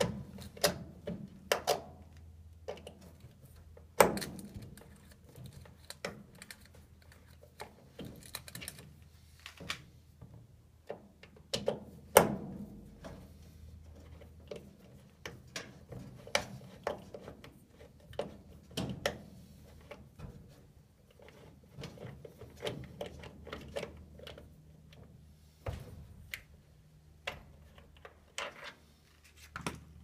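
Irregular clicks, taps and light knocks of hands and tools working on the furnace's draft inducer, pulling off hoses and wire connectors, with a faint steady low hum underneath. The sharpest knocks come about four seconds in and about twelve seconds in.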